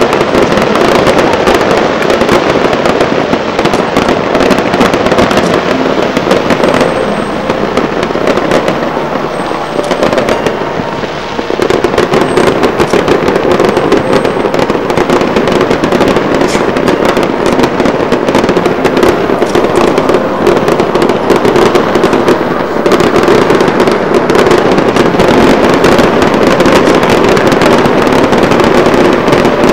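Fireworks going off in a dense, continuous barrage of bangs and crackles, easing briefly about ten seconds in before building again.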